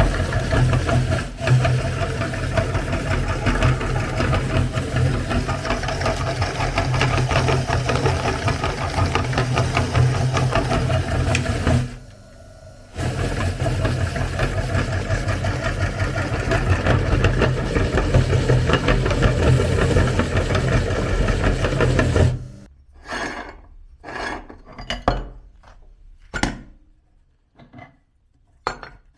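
Electric meat grinder running while grinding cookies, a steady motor hum with a busy grinding texture over it. It stops about twelve seconds in, starts again a second later, and switches off about two-thirds of the way through, after which come a few separate sharp knocks and clicks.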